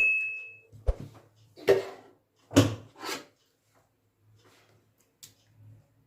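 A kitchen utensil clinks against the straining vessel with a short ringing tone, followed by several brief scrapes and rustles as blended pulp is worked through a sieve to strain out the liquid.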